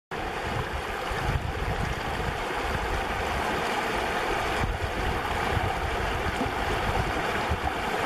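Shallow river running over a stony riffle, a steady rush of water, with wind buffeting the microphone in uneven gusts.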